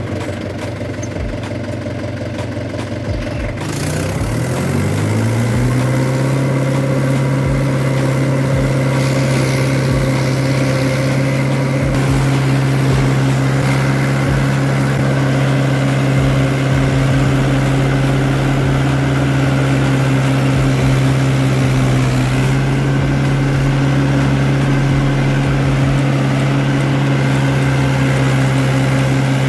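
Mahindra 575 DI tractor's diesel engine running, revving up over a couple of seconds about four seconds in, then holding steady at higher revs.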